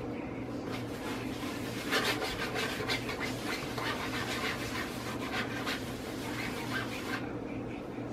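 Hands rubbing and rolling a piece of soft yeast dough on a floured granite countertop. A scratchy rubbing starts about two seconds in and stops about seven seconds in, over a steady low hum.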